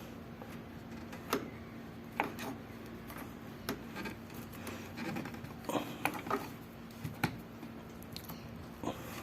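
Scattered sharp clicks and small knocks of hand work, trimming an improvised shim fitted to take up play near a Honda Civic's radiator, over a steady low hum.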